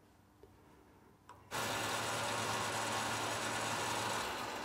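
Near silence, then about a second and a half in a metal lathe comes in abruptly and runs steadily with a low hum, turning the relief cut at the back of the threaded stem on a Linkert M35 carburetor. It eases slightly near the end.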